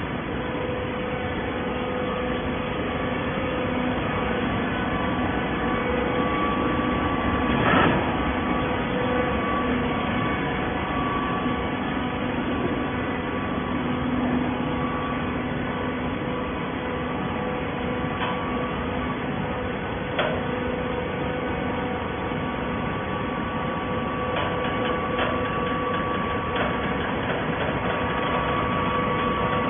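Hydraulic shredded-paper baler running, its pump and motor giving a steady hum. A sharp metallic knock comes about eight seconds in, and a lighter one about twenty seconds in.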